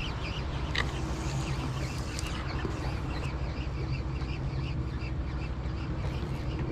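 Steady low hum of a boat's engine running, with a quick, even chirping repeated several times a second over it.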